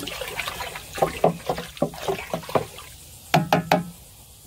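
Water swishing in a plastic drum as a hot dye bath is stirred with a stick, with a run of short knocks and three louder knocks close together about three and a half seconds in.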